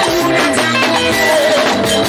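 Live band music with plucked guitar lines over a steady beat.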